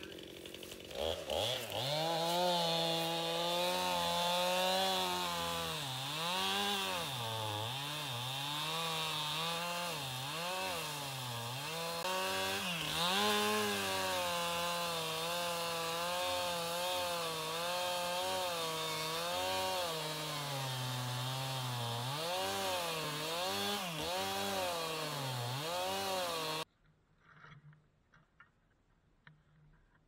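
Stihl two-stroke chainsaw cutting a fallen tree trunk. The engine starts about a second in, then its pitch rises and dips over and over as the cut loads it and it revs back up. Near the end the sound cuts off abruptly.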